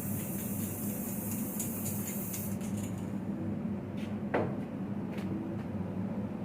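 Aerosol spray can of varnish hissing, stopping about two and a half seconds in, followed by a few light clinks and knocks, over a steady low hum.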